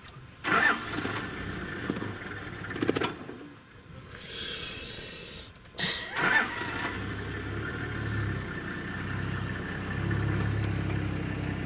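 A vehicle engine starts about six seconds in and then idles with a steady low hum.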